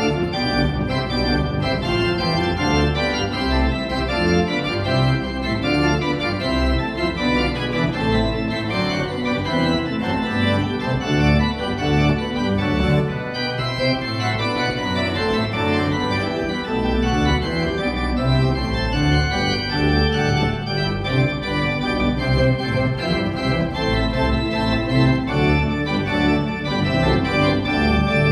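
Pipe organ playing: sustained chords on the manuals over low pedal notes that change every second or so.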